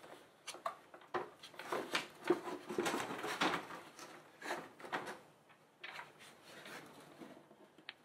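A hard plastic air intake box being handled and pulled apart: irregular clicks, knocks and scraping of plastic parts.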